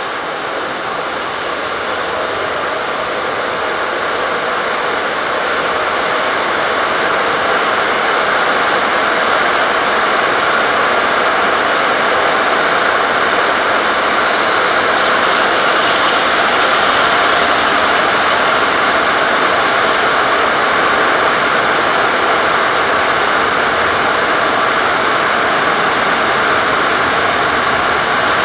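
Steady rush of car-wash water spray and spinning wheel brushes of a MacNeil WheelBoss scrubbing the side of a passing vehicle. It gets a little louder over the first several seconds, then holds steady.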